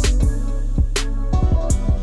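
Background music with a steady beat: drum hits over a sustained deep bass line.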